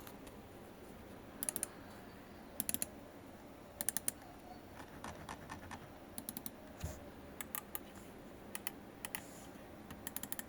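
ASUS TUF Gaming M3 Gen II gaming mouse clicking, faint, in quick groups of two or three clicks every second or so, with a few lighter ticks in between.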